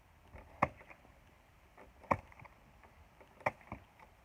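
Four sharp knocks, about a second and a half apart, over a faint outdoor background.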